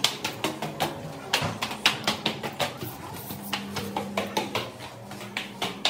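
Quick, irregular clicking and knocking of a plastic water bucket's wire handle as the bucket is carried and swung, about three or four clicks a second.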